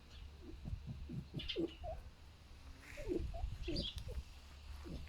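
Foxes grunting like a pig: an irregular run of short, low, pig-like grunts, several a second, pausing briefly about halfway through.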